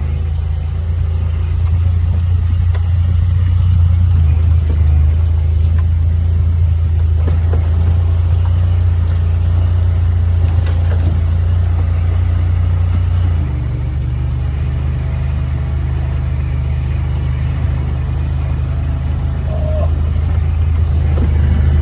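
Vehicle engine and road noise while driving, a steady low drone that shifts down to a lower, slightly quieter note about halfway through.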